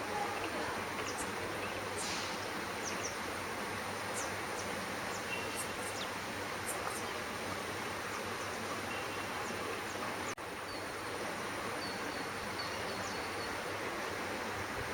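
Steady outdoor background hiss with a constant thin high whine and scattered faint high chirps; the sound drops out for an instant about ten seconds in.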